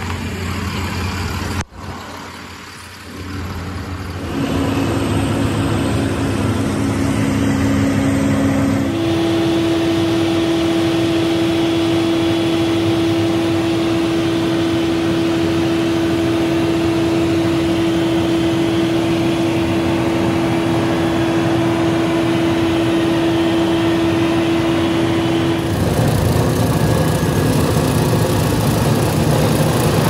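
Asphalt plant machinery running: continuous motor and engine noise, with a steady mid-pitched hum through a long middle stretch. Near the end it changes abruptly to a rougher, louder rumble.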